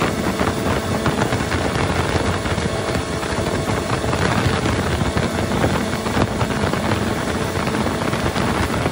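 Mercury FourStroke outboard motor running steadily at planing speed, mixed with a steady rush of wind and water off the hull.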